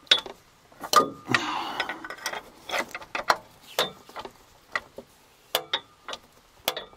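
Sofim diesel engine being turned over by hand with a wrench on the crankshaft pulley: irregular sharp clicks and knocks, with a short scraping rush a little over a second in. The engine binds partway round, with something obstructing its rotation.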